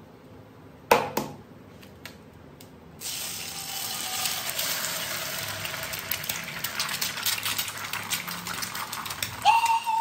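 Egg hitting hot oil in a frying pan and sizzling steadily from about three seconds in. Before that, two sharp clicks about a second in, and a brief high tone that rises and then holds near the end.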